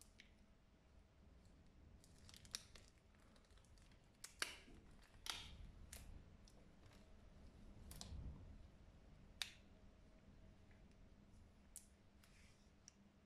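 Faint handling sounds of latex-gloved hands working a glove cuff at the wrist: scattered sharp clicks and small snaps every second or two, over a low steady hum.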